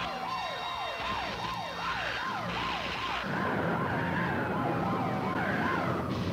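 Sirens on an old film's soundtrack: one sweeps quickly up and down about three times a second over a slower rising and falling wail.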